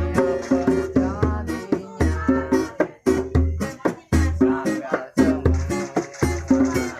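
Music played on plucked string instruments over a steady beat, with sharp percussive hits and a low bass note pulsing about once a second.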